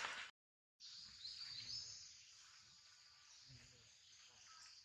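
Faint forest ambience: a steady high insect hiss, with two short rising bird chirps about a second and a half in. The sound drops out completely for about half a second just after the start.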